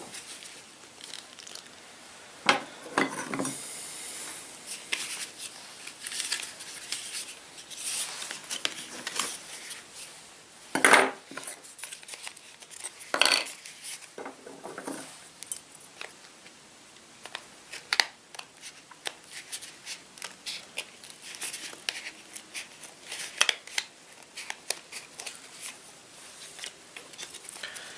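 Thick, stiff birch bark being handled and cut with sturdy scissors: irregular snips, crackles and small clicks of metal, the loudest about eleven seconds in.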